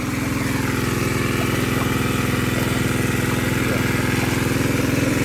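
Diesel engine driving a water pump, running steadily at an even speed.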